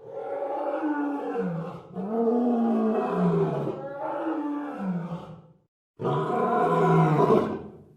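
A big cat roaring: several long calls, each rising and falling in pitch, with a brief pause about two-thirds of the way through.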